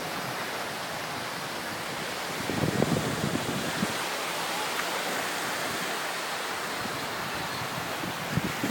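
Steady wash of gentle surf, with wind rumbling on the phone's microphone and a stronger gust about three seconds in.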